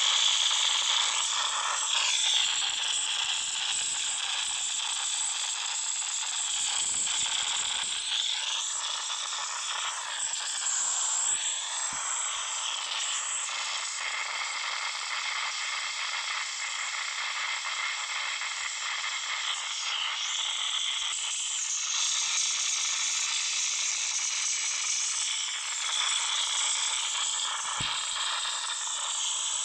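Samsung Galaxy Note 9 loudspeaker giving out a steady, thin hiss with faint warbling tones running through it and no low end. This is the random fault noise the speakers make during playback, which only a phone reboot stops.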